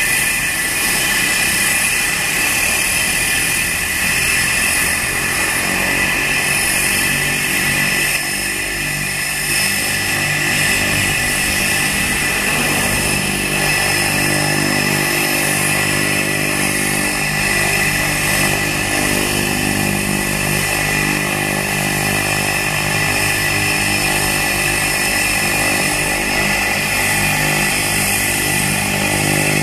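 Cessna 208 Caravan's Pratt & Whitney PT6A turboprop running at low power on the ground, a steady high turbine whine over the low drone of the propeller.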